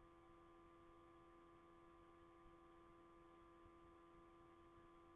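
Near silence: faint steady electrical hum made of a few constant tones, the background noise of the recording.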